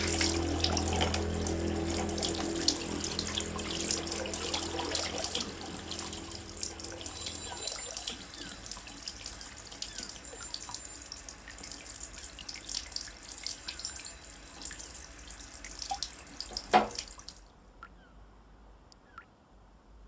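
Water running from a tap into a sink, then a sharp knock, and the flow cuts off suddenly about 17 seconds in; a few faint drips follow.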